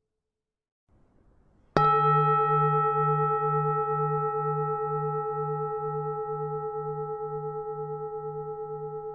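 Vietnamese bronze temple bell struck once about two seconds in, then ringing on with a slow fade. Its low hum pulses about twice a second under several steady higher tones.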